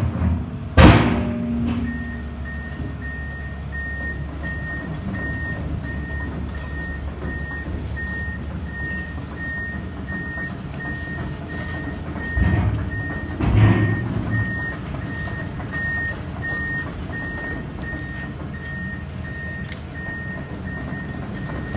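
Tracked excavator's travel alarm beeping steadily, about two beeps a second, over the low running of its engine. A loud knock comes about a second in, and two louder bangs come around twelve to fourteen seconds in.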